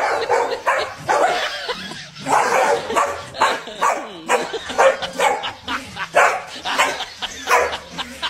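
Corgi barking in many short, quick barks, coming closer together in the second half.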